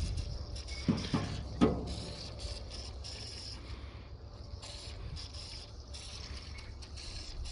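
Hand-tool work on the car: three sharp knocks between one and two seconds in, then rubbing and scraping, over a low steady rumble.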